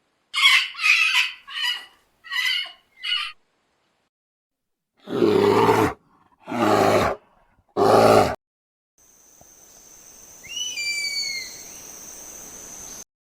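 A sequence of different animal calls: five short, high, raspy calls in the first few seconds, then three loud, deep calls about a second apart, then a faint hiss with a few short falling chirps near the end.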